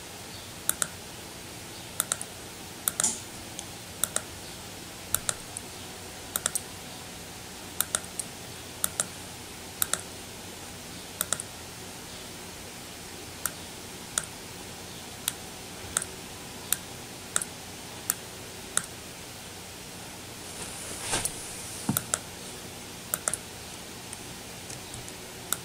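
Computer mouse clicking, a sharp click or quick pair of clicks about once a second, over a steady hiss. A brief rustling noise comes near the end.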